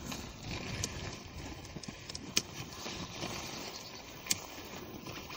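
Plastic hooks of an inner tent being clipped onto aluminium tent poles: two sharp clicks about two seconds apart over rustling of the tent fabric.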